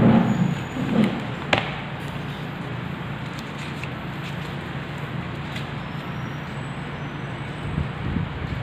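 Steady low background rumble, with one sharp click about a second and a half in and a few faint taps as a replacement phone LCD screen and a phone frame are picked up and handled.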